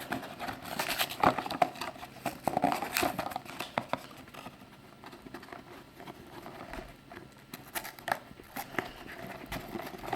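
Hands prying at a small cardboard mystery-minis box: irregular scraping, tapping and crinkling as the flaps resist opening, with clusters of sharper clicks in the first few seconds and again near the end.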